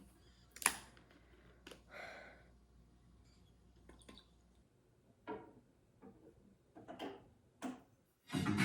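Scattered light clicks and taps, like tableware and small items being handled during a meal, in a quiet room. Background music with a guitar starts near the end.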